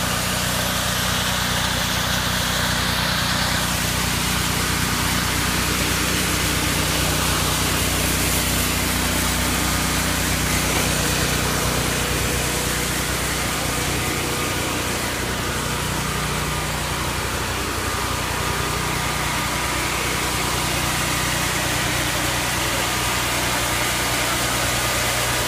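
Sawmill engine running steadily.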